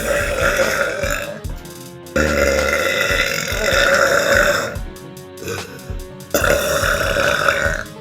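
A girl burping loudly: three long, drawn-out burps with short pauses between them, the middle one the longest at well over two seconds.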